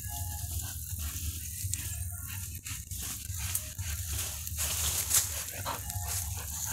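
A dog digging in loose soil: its paws scratch and scrape the dirt in quick, irregular strokes, with dry grass and twigs rattling around the hole.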